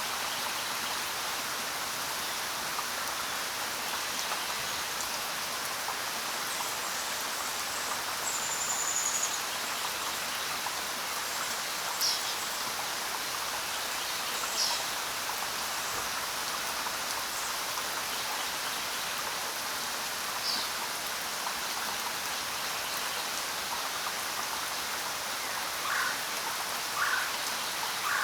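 Steady rain falling, an even hiss of drops, with a handful of short bird chirps scattered through it.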